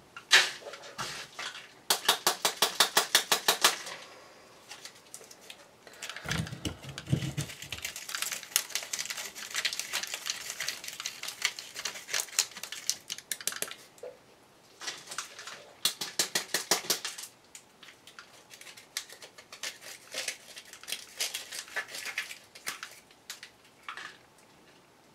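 A knife cutting and scraping at a firework shell's paper casing by hand: bursts of rapid scraping strokes, about ten a second, with quieter rasping and handling noise between them.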